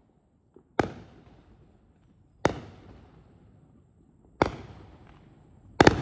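Aerial fireworks bursting: three loud bangs about two seconds apart, then a quick double bang near the end, each trailing off in an echo.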